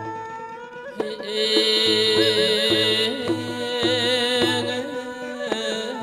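Khmer traditional wedding music (phleng kar) played by an ensemble: a wavering, vibrato-laden bowed fiddle melody over a hand drum's steady beat, with plucked or struck notes. It swells fuller and louder about a second in.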